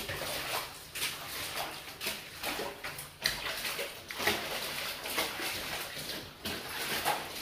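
Irregular wet sloshes and squelches of laundry being trodden underfoot in a steel basin of water.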